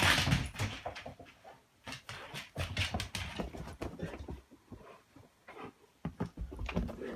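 Akita growling and grumbling in play, in rough, uneven bursts, with a few sharp clicks among them.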